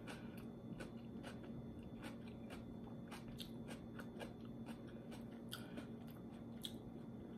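A person chewing a mouthful of coleslaw close to the microphone: faint, irregular crisp crunches of the raw cabbage.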